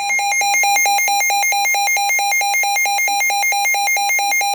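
A weather radio receiver's built-in alert alarm: rapid, evenly spaced electronic beeping, loud and steady. It cuts off suddenly at the end as the receiver switches over to the broadcast warning.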